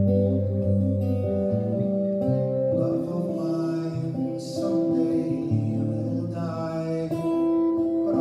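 Archtop guitar played solo, strummed chords with notes left ringing and changing about once a second.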